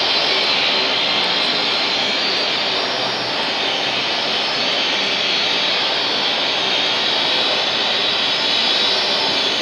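A steady rushing noise with no breaks or changes, strongest in the upper range.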